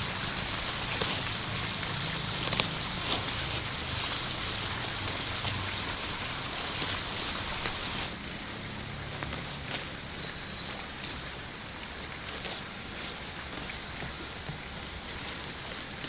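Dry straw nesting material rustling and crackling as hands reach into nest boxes to pick up eggs, with scattered small clicks over a steady hiss and low hum. The sound drops a little about halfway through.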